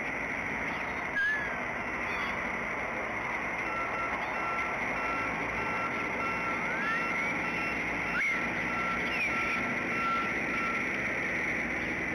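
Steady outdoor background hiss with a few short rising bird chirps. A steady, thin whistle-like tone runs through the middle for several seconds.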